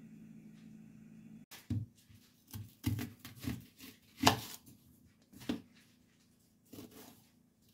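Kitchen knife cutting through a peeled onion and knocking onto a thin plastic cutting board: a string of crunching cuts and sharp taps at uneven intervals, the loudest a little past the middle.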